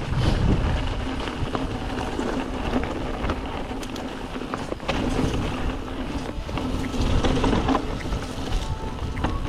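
Wind rumbling on the microphone, with scattered clicks and rattles; faint music comes in near the end.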